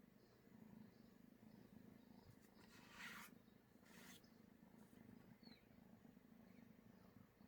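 Domestic cat purring faintly and steadily, with two brief hissing noises about three and four seconds in.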